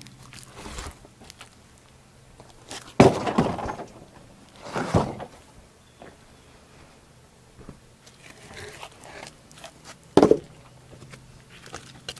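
Heavy thunks of freshly sawn wood slabs being handled and dropped: a loud one about three seconds in, another near five seconds and a third near ten seconds, with smaller knocks between and a faint steady low hum underneath.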